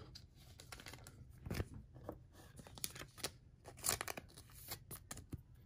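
Faint, scattered crinkling and light ticks of a thin plastic card sleeve and trading cards being handled.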